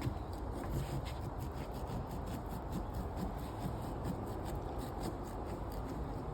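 A knife cutting and scraping through a pumpkin's rind in many short, scratchy strokes.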